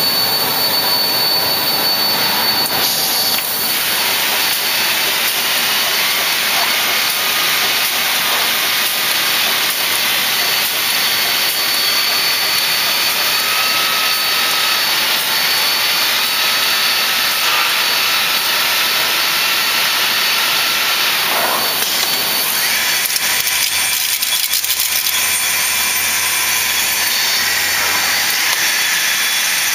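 Biesse Skipper 100 CNC panel boring machine running: a steady loud hiss and high whine from its drilling heads and air, with a brief pitch glide a little past twenty seconds and rapid ticking rattle over the last few seconds as the heads work the panel.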